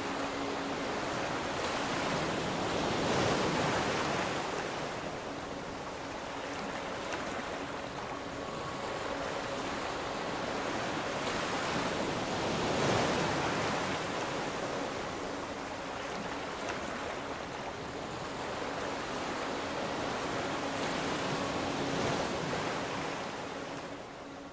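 Sea waves breaking on a sandy beach, the surf swelling and falling back about every nine seconds, fading out near the end.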